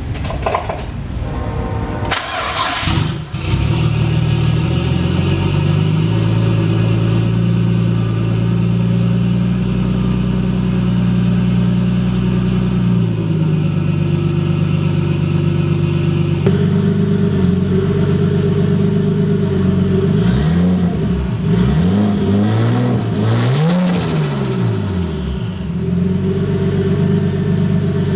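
Nissan RB25DET turbocharged inline-six in an S13 240SX. It starts about three seconds in and runs steadily, with its idle shifting twice. Near the end it is blipped through four or five quick revs, each rising and falling, with the turbo fluttering as the throttle closes.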